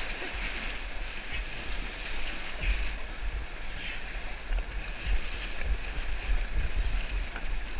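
River rapids rushing and splashing around an inflatable raft, heard close up from its bow, with a steady low rumble of wind and water buffeting the microphone.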